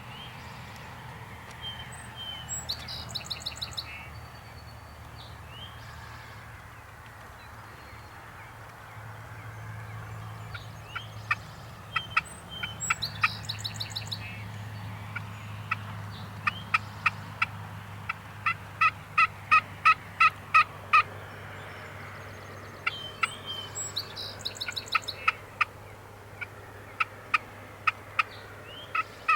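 Wild turkeys gobbling in rattling bursts, three times, with runs of evenly spaced yelping notes at about three a second between and after them.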